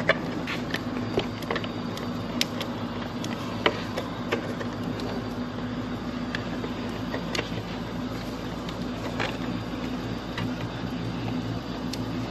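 Scattered light plastic clicks and taps as a motorcycle fairing panel is handled and pressed into its grooves, over a steady low hum.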